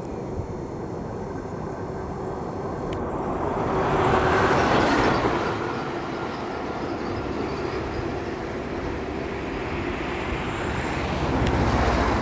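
Road noise of a moving vehicle: a steady rumble and rush that swells about four seconds in and again near the end.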